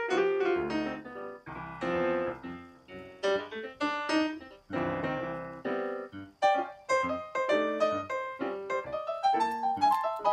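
Background piano music: a light melody of quick notes, each struck and fading.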